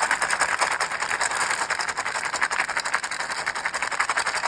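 Dry dog kibble pouring and rattling into a bowl: a steady, dense clatter of many small hard pieces.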